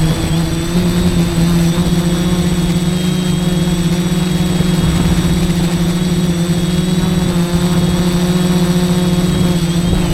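F450 quadcopter's brushless motors and propellers humming steadily at a constant pitch, with a rushing noise beneath the hum.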